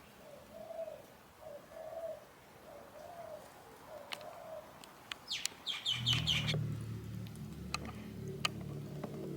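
A dove cooing over and over in short arched calls, then a quick burst of high chirps from a small bird about five seconds in. A low steady hum comes in about six seconds in.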